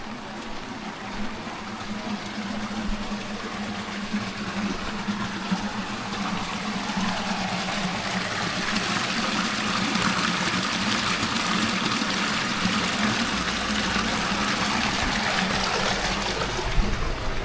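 Running water, a steady rushing that grows louder through the middle and eases slightly near the end, over a faint steady low hum.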